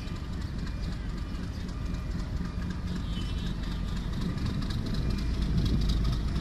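Diesel locomotive hauling a commuter train, approaching with a low engine rumble that grows louder toward the end.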